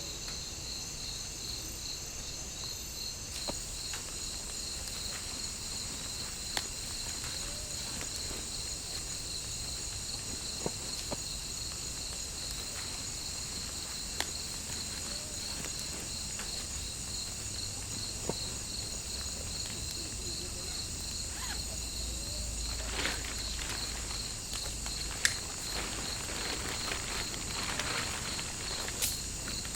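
Tropical forest insects chirring steadily: a fast pulsing trill with a higher continuous hiss above it. Scattered sharp clicks, then a run of knocks and rustling footsteps in the last few seconds.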